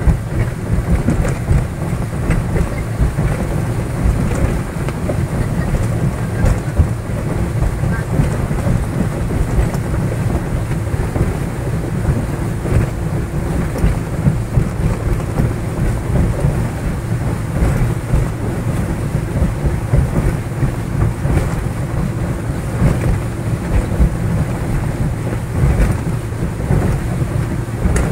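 Motorboat running at speed, a steady engine drone under heavy, gusting wind rumble on the microphone.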